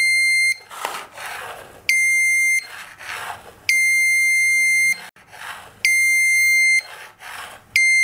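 Small electronic buzzer run from a 9 V battery giving about five high, steady beeps of roughly a second each. Each beep is the reed switch in the magnetic sensor closing as the magnet is brought near it, with a quieter rustle between the beeps.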